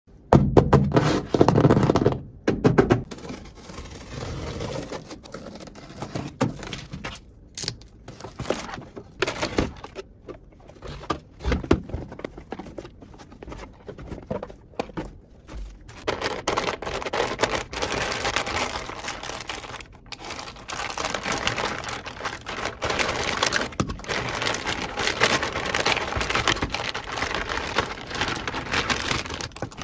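Small plastic toy-kitchen pieces and their packaging being handled close up: many clicks and taps, with scraping and crinkling of plastic, louder in the first few seconds.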